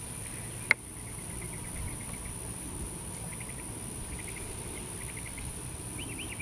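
Outdoor ambience of small chirping calls in short repeated trills over a steady high whine, with one sharp click about two-thirds of a second in.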